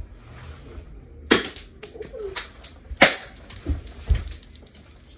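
Spring-powered BB guns, cocked by hand for each shot, firing: two sharp snaps just over a second in and about three seconds in, with several lighter clicks and knocks between and after.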